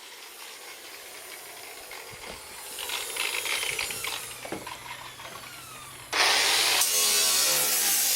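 A few knocks and a falling whine, then about six seconds in a 9-inch angle grinder starts cutting into the car body's sheet metal, loud and continuous, its pitch wavering as it bites.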